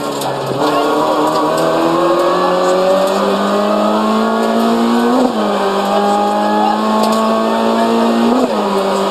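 Renault Clio RS rally car's 2.0-litre four-cylinder engine heard from inside the cabin, pulling under hard acceleration with its pitch climbing steadily. The pitch drops sharply with a gear change about five seconds in and again near the end, then starts climbing once more.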